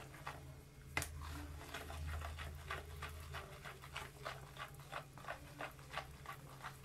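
Silicone whisk beating pancake batter in a bowl: quick, regular scraping strokes, about three a second, with a sharp knock against the bowl about a second in.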